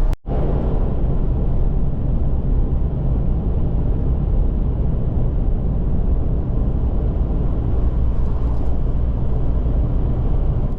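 Steady drone of a car driving along the road, road and engine noise with a strong low rumble. It cuts out for an instant just after the start, then runs on evenly.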